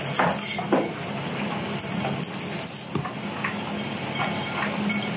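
Crisp deep-fried noodles crackling and rustling as fingers break them apart on a plate, over a steady low kitchen hum.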